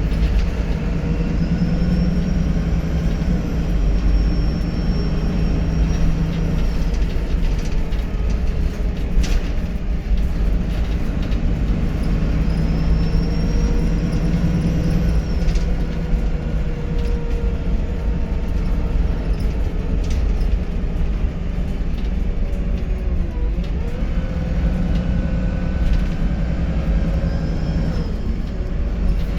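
VDL SB200 bus running with a steady low engine and road drone. A faint high turbo whistle rises and holds three times, about two seconds in, around twelve seconds in and near the end, with a few sharp clicks between.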